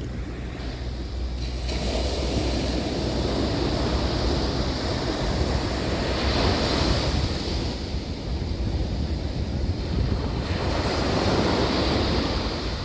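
Ocean surf breaking and washing up the beach, swelling louder about two seconds in and again near the end. Wind rumbles on the microphone underneath.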